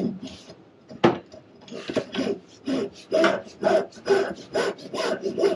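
Spray hose of a Moen Adler pull-down faucet being fed down through the faucet body hand over hand, rubbing in repeated short strokes about two a second, after a single sharp knock about a second in.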